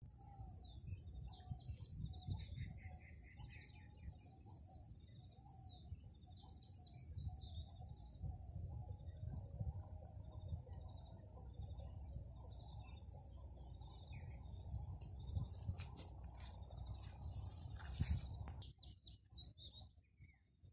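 A continuous shrill insect trill, high-pitched and finely pulsing, with scattered short bird chirps over it. The trill cuts off suddenly near the end. A low rumble sits on the microphone.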